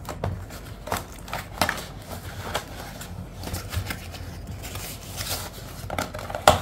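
Paperboard box being opened by hand: irregular rustling, scraping and small clicks of cardboard flaps, with a sharper tap near the end.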